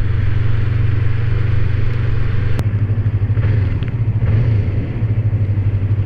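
Yamaha MT-25's 250 cc DOHC parallel-twin engine running at low revs in slow traffic. Near the end it settles into an even idle pulse.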